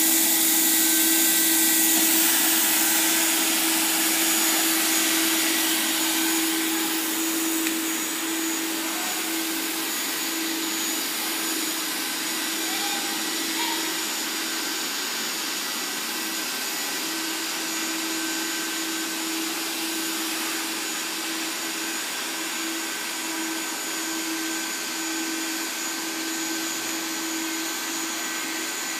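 Automatic hot-air welding machine running, its blower giving a steady hiss with a constant hum as it drives along the banner's edge, welding a rope hem. It gets a little quieter after about six seconds as the machine travels away.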